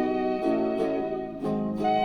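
Instrumental break of a Brazilian sertanejo guarânia played from a vinyl LP, with no singing. A melody of held notes steps to a new pitch about every half second to second over a chordal accompaniment.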